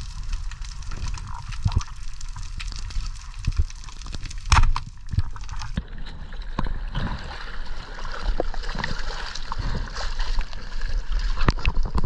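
Underwater sound picked up by a diving camera: a low rumble of moving water with scattered clicks, and one loud knock about four and a half seconds in. After a cut, water sloshes and splashes at the surface against an inflatable boat.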